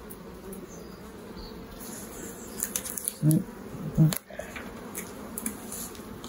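Honeybees buzzing in a steady hum over an opened hive. A few sharp clicks and two brief knocks come about three and four seconds in, as the wooden frame is lowered back into the hive box.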